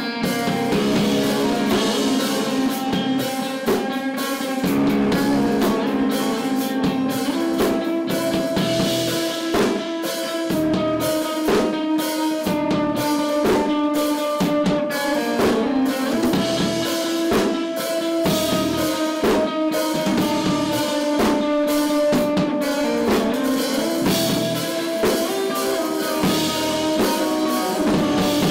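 Live band playing: electric guitars holding sustained notes over a drum kit hitting steadily.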